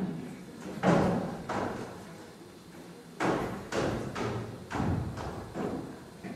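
Title-sequence percussion: about eight heavy drum strikes at uneven intervals, each ringing out before the next.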